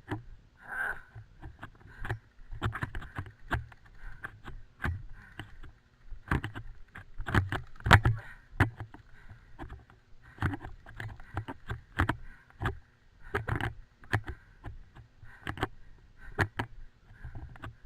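Footsteps at a walking pace, each with a dull thud and a rattle of carried gear, picked up close by a helmet-mounted camera.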